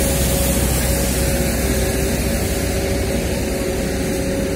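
Busy city street ambience: steady traffic noise mixed with a walking crowd, with a low rumble that eases about halfway through.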